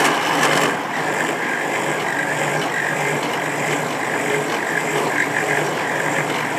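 Vertical milling machine running slowly, about 70 RPM, as two stacked slitting saws feed into a bicycle seat-tube binder to cut its slot, wet with cutting fluid. A steady machine hum with a higher cutting noise over it.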